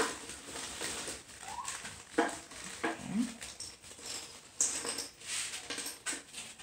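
A dog whines briefly a couple of times, short rising whimpers. Thin plastic bags of LEGO pieces crinkle while being handled, with a few light knocks on a wooden table.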